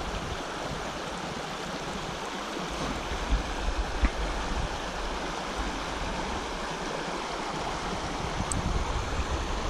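Evans Creek running steadily over a shallow rocky riffle where it flows into the lake, an even rushing of water. A light knock about four seconds in.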